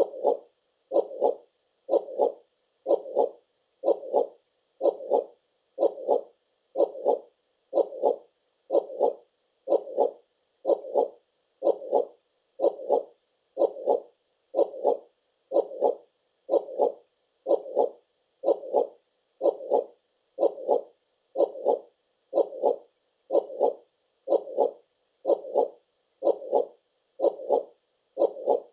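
Heartbeat sound: a steady lub-dub double thump about once a second, with silence between the beats.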